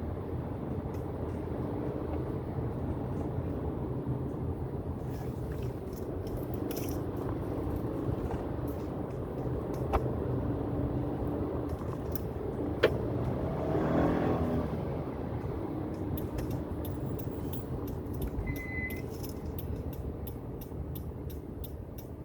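Interior sound of the 2018 Subaru Forester 2.5i under way in city driving: the Lineartronic CVT holds its flat-four at a steady drone, with road noise underneath. Two sharp clicks and a brief swell in noise around the middle.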